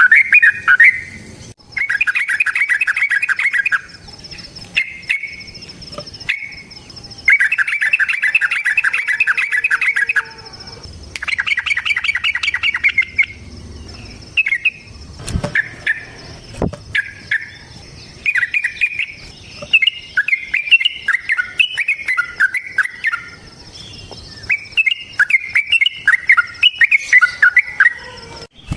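Yellow-vented bulbul (trucukan) singing: fast rolling runs of bubbling notes, each about two seconds long, then shorter separate warbled phrases, with a few sharp clicks among them.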